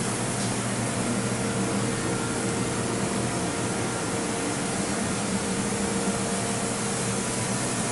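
Steady hiss with a low mechanical hum, like a fan or blower running, unchanging throughout.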